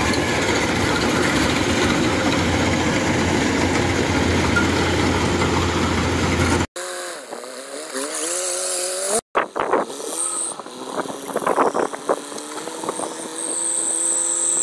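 Kubota DC105X rice combine harvester running close by while cutting, a dense steady machine noise over a low diesel hum. About six and a half seconds in it cuts to a quieter engine whose pitch rises and falls, with scattered clanks: a tracked carrier hauling sacks of harvested rice.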